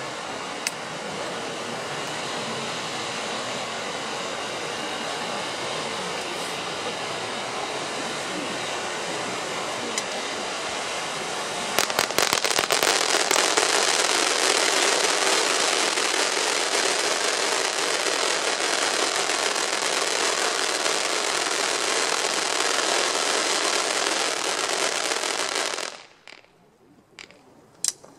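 Nico Inferno Mega fountain, a ground firework fountain, hissing steadily as it sprays sparks. About twelve seconds in it turns louder and breaks into a dense crackle. It stops abruptly near the end, followed by a couple of faint pops.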